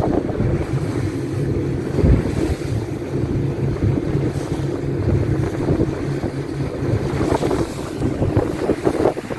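Small fishing boat running steadily under engine power, with wind buffeting the microphone and the hull moving through light chop. A low thump about two seconds in.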